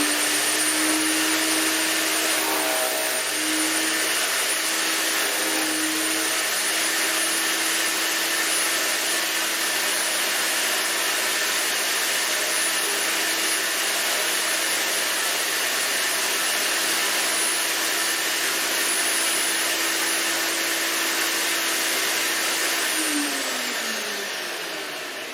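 Earthwise GS70015 electric wood chipper running at full speed with a steady motor hum and high whine, briefly chewing up a skinny quarter-inch branch a few seconds in. Near the end it is switched off and the whine falls as the motor spins down.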